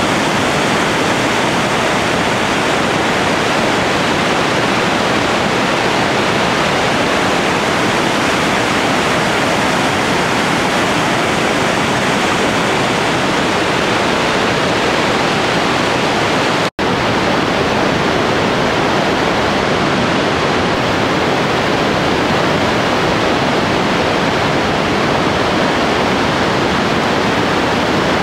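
Merced River whitewater rushing over rapids: a steady, loud wash of water noise. There is a momentary dropout about two-thirds of the way through, after which the rush sounds slightly duller.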